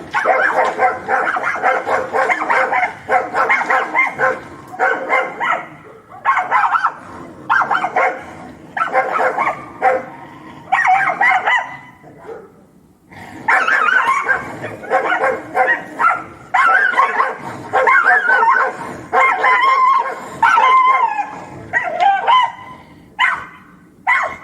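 Dogs fighting, barking angrily in dense, overlapping bursts. There is a brief lull about halfway through, and the barks come in shorter separate bursts near the end.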